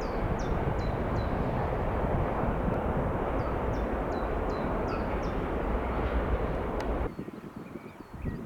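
A train running past close by: a steady rumble of wheels on rails, with short high squeaks repeating over it. It cuts off abruptly about seven seconds in, leaving only faint outdoor background.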